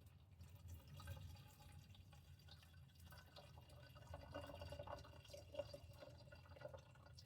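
Gasoline being poured, a faint trickling and dripping that gets a little stronger about halfway through.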